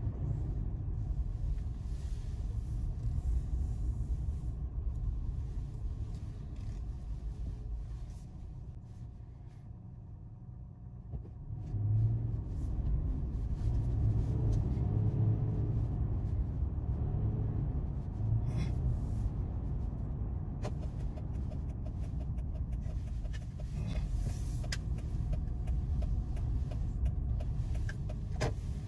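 Car interior noise while driving: a steady low engine and road rumble. It eases off for a few seconds before halfway, then grows again with engine tones about twelve seconds in as the car picks up speed.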